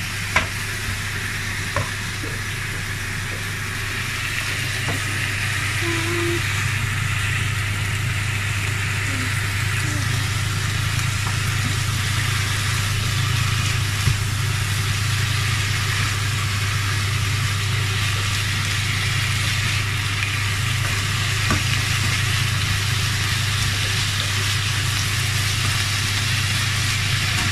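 Chicken, onion, mushrooms and garlic sizzling steadily in oil in a non-stick frying pan, with a few knocks of a plastic spatula stirring near the start. A steady low hum runs underneath.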